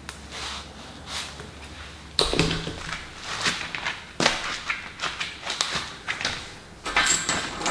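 Scattered knocks and clicks of metal mounting hardware being handled, turning into a bright clinking rattle of bolts, nuts and washers near the end.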